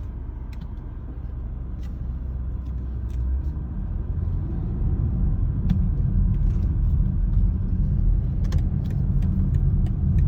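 Road and engine rumble inside a moving car's cabin, growing louder a few seconds in as the car picks up speed, with a few faint ticks and rattles.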